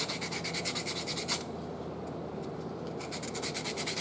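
Sandpaper rubbed by hand over the end of a small turned wooden ornament in quick back-and-forth strokes, smoothing the rough break-off spot. The strokes pause about a second and a half in and start again about three seconds in.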